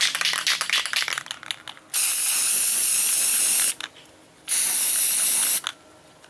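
Aerosol can of Rust-Oleum spray primer being shaken, its mixing ball rattling in quick clicks, then sprayed in two hissing bursts: one of nearly two seconds and a shorter one of about a second.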